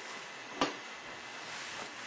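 A single sharp click from a Spy Gear motion-triggered toy dart launcher, over a faint steady hiss.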